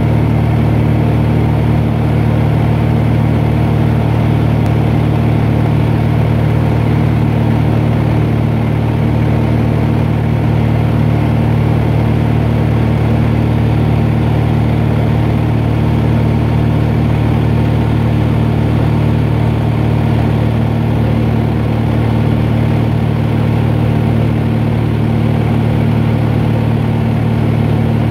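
Steady drone of an aircraft's engines heard inside the cabin in flight: a deep, even hum made of several held tones that does not change.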